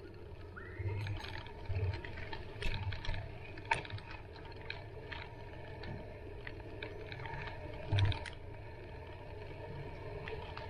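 Bicycle rolling along a dirt park path: steady tyre and ride noise with scattered sharp clicks and rattles and a few low thumps over bumps, the loudest about eight seconds in.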